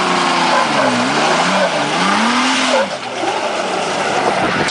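Off-road 4x4 engine revving, its pitch rising and falling several times in a row over a steady hiss.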